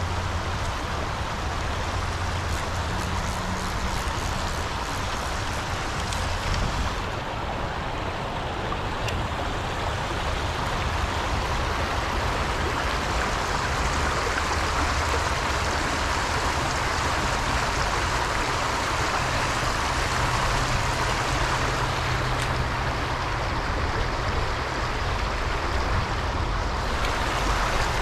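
Stream water flowing in a steady rush, with a low rumble underneath.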